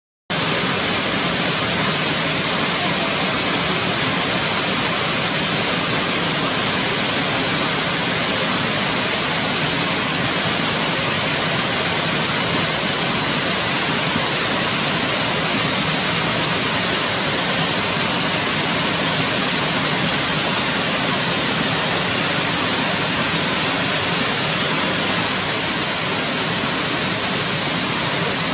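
Waterfall pouring in a steady, loud rush of water, cutting in abruptly out of silence right at the start.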